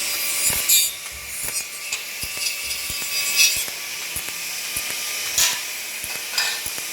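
TIG welding on stainless steel: a steady high hiss from the arc with scattered sharp crackles and clicks, a few of them louder.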